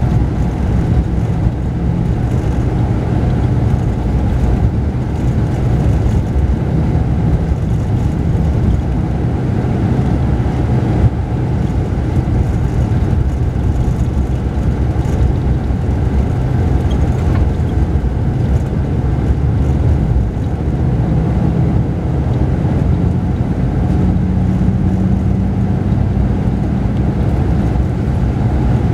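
Mercedes-Benz O-500RSD coach engine running at a steady cruise, heard inside the cabin of the double-decker's upper deck together with tyre and road noise: a steady low drone with a constant engine note.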